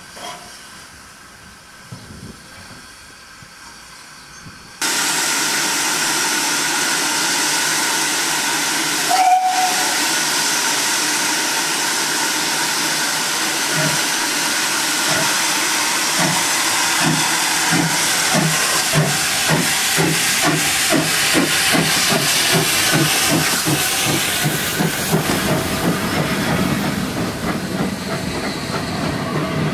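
GWR 0-4-2 tank engine No. 1450 hissing loudly with escaping steam, starting abruptly about five seconds in, with a short whistle toot a few seconds later. The engine then pulls away with its exhaust beats getting quicker as it gathers speed.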